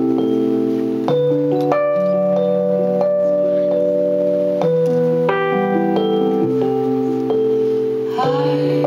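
Korg stage keyboard played with a piano sound: a series of held chords, each struck and left to ring before the next, changing every second or two.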